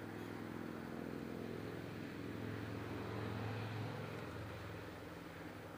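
An engine humming steadily, growing louder about halfway through and then easing off, like a passing vehicle.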